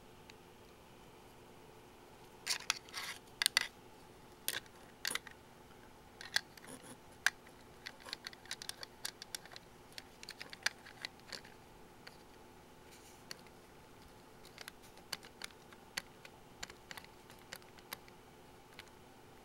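Small hard-plastic clicks, taps and short scrapes from a Mini 4WD chassis and its clear body being handled, in irregular clusters, with a faint steady hum underneath.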